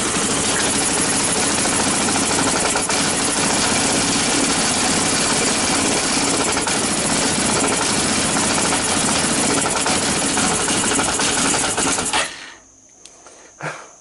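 Chinese utility quad's single engine running steadily on its newly wired CDI ignition, then cutting out abruptly about twelve seconds in.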